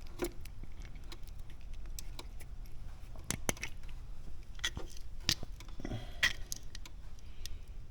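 Scattered light clicks and knocks of tools and parts being handled over a low steady hum, as speakers are worked out of a motorcycle's lower fairing.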